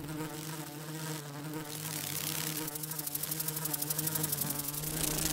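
Buzzing of a flying bumblebee, as an animation sound effect: a steady drone that grows louder towards the end.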